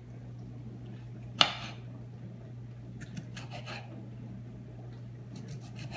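Kitchen knife slicing a strawberry on a wooden cutting board: one sharp knock of the blade on the board about a second and a half in, then a few light taps and clicks.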